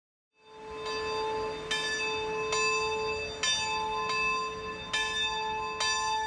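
Church bell ringing, struck a little faster than once a second, each strike ringing on into a steady hum. It fades in from silence about half a second in.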